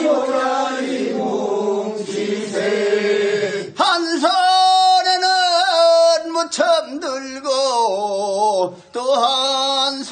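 Korean seedling-pulling work song (mojjineun sori): a group of voices sings the refrain together, then about four seconds in a single lead voice takes over with a long, drawn-out line.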